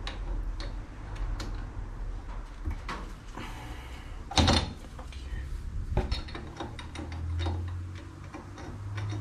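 Scattered metal clicks and knocks from hand-tightening a collet in a 5C collet block and handling it on a milling machine table. There is one louder clunk about four and a half seconds in and another near six seconds.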